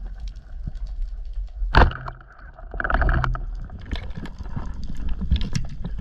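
Speargun fired underwater: a single sharp, loud crack about two seconds in, followed about a second later by a longer burst of noise as the shaft and line go out. Scattered faint clicks and a low rumble of the water run underneath.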